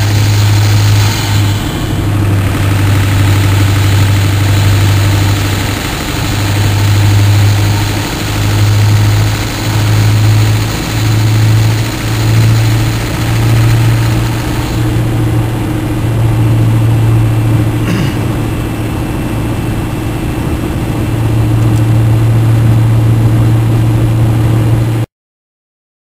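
7.3L Powerstroke V8 turbo-diesel pulling under throttle, with a steady hiss from a boost leak between the turbo compressor housing and the X-pipe. About fifteen seconds in the throttle is released and the hiss drops away, leaving the engine's low drone. The sound cuts off just before the end.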